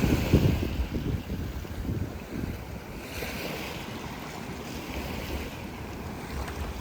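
Wind buffeting the microphone in uneven gusts over a rushing wash of sea surf that swells twice.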